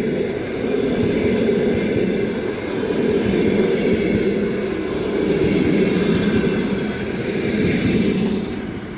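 Passenger train hauled by an EP2K diesel locomotive rolling past, a steady rumble of wheels on rails that falls away about eight and a half seconds in as the train moves off.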